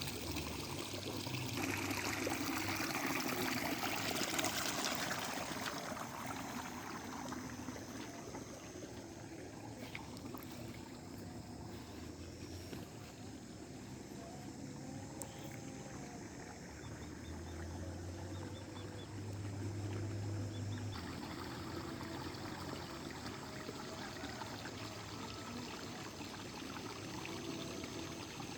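Water flowing and trickling steadily, louder a few seconds in. A faint low hum runs briefly past the middle.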